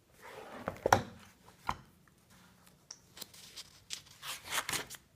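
A page of a spiral-bound sketchbook being turned: a paper rustle with a sharp flap about a second in, then more rustling and brushing of a hand on the paper near the end.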